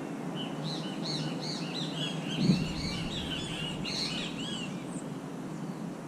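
Songbird chirping: a quick run of short, high-pitched arched notes that lasts about four seconds and then stops, over steady background noise. A single dull thump sounds about two and a half seconds in.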